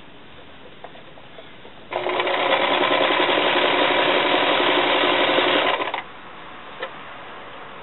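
Household sewing machine running a straight-stitch seam at a steady speed, starting about two seconds in and stopping about six seconds in. A single short click follows soon after.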